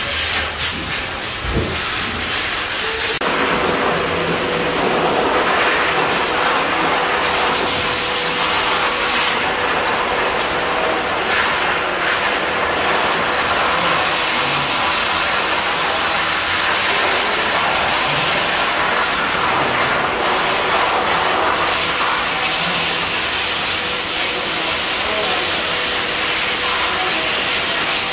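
Water spraying from a shower hose for about three seconds, then a high-velocity pet dryer switches in, blowing air through its hose onto a dog's coat with a steady rush and a constant whine.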